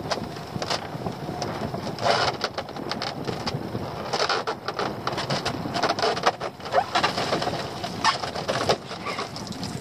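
A homemade lobster pot being hand-hauled out of the sea into a small boat: the rope and the wet pot knock and rattle against the side, with water splashing and dripping. It starts as a steady noise, then turns into a busy run of knocks and clatters from about two seconds in.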